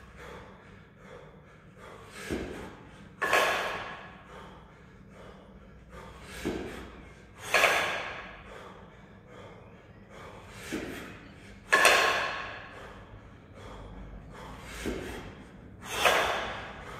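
A lifter's hard, forceful breaths with each double kettlebell jerk: four loud exhalations about four seconds apart, each led by a shorter, softer breath about a second before.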